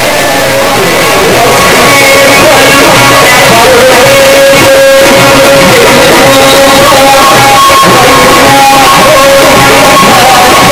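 Live Egyptian Sufi inshad (religious chanting) with its ensemble, played loud through a sound system: a melody of long held notes that step between pitches, with the chanter's singing voice.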